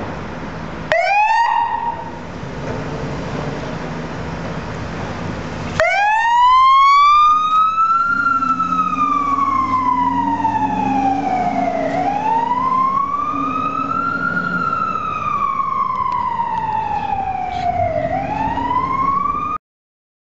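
Fire engine siren: a short rising whoop about a second in, then from about six seconds a slow wail climbing and falling about every six seconds. The sound cuts off suddenly near the end.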